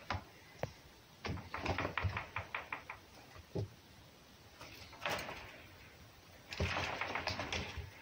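A fox and a cat scuffling on and around a wooden box. Scattered knocks and a quick run of about seven clicks give way to a single thud, then short hissy noise bursts later on, the longest starting about a second and a half before the end.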